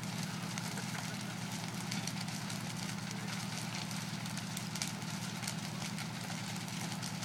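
Fire truck engine idling with a steady low hum, under the scattered crackles and pops of a wooden house burning.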